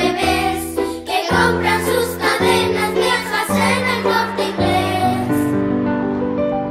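A children's song sung in Spanish by children's voices over instrumental backing, the bass moving to a new note about once a second; the last line ends on a held chord.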